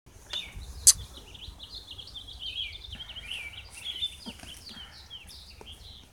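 Small birds chirping in quick, dense series throughout, with a single sharp click about a second in.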